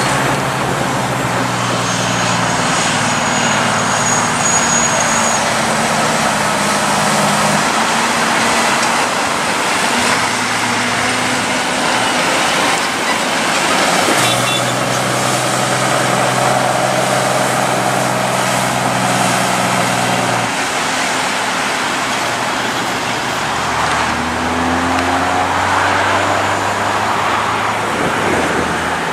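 Heavy diesel trucks passing close by with road traffic. Big prime-mover engines run at steady pitches that step up and down several times, under tyre and road noise, with one rising engine note near the end.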